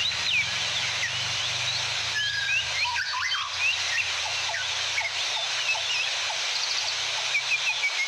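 Several songbirds chirping and whistling in quick short notes over the steady rush of a waterfall, with a low hum underneath that stops near the end.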